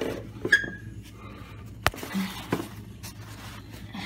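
A plastic container knocking and scraping on a wooden floor as it is brought down to trap a scorpion, with one sharp click about two seconds in and a few lighter knocks around it.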